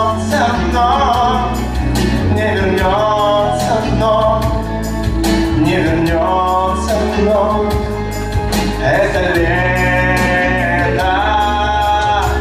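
Music: a song with a melodic lead line over a steady bass beat.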